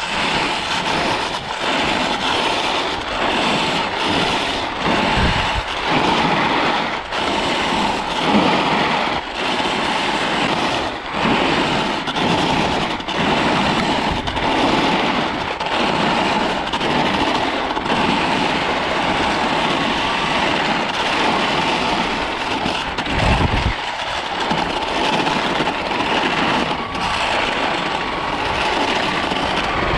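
Short Crossblades skiblades scraping and carving over hard-packed groomed snow: a continuous hiss that swells and eases about once a second as the skis edge through linked turns, with a faint steady tone running underneath.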